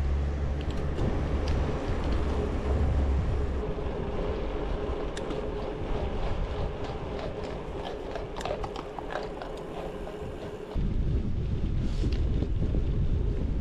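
Wind buffeting the microphone and tyre noise from a road bike being ridden. The low wind rumble eases after a few seconds and comes back suddenly louder about eleven seconds in.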